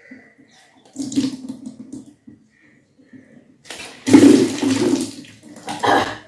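Salt water gushing out of the mouth during kunjal kriya (induced vomiting), with retching. There is a short gush about a second in and a longer, louder one from about four seconds in.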